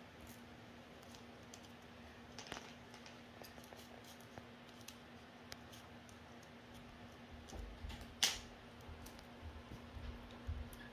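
Small piece of origami paper being folded and creased by hand: faint crinkles and soft ticks, with one sharper click about eight seconds in.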